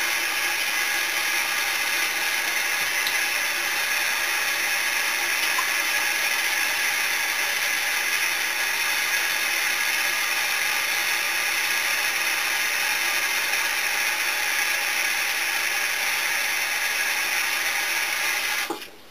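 Kitchen tap running steadily into the sink as thistle roots are rinsed under the stream, then shut off near the end.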